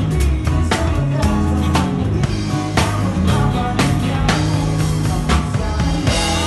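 A live band playing a pop-rock song, heard from beside the drum kit: kick, snare and cymbal hits keep a steady beat up front, over sustained bass and guitar.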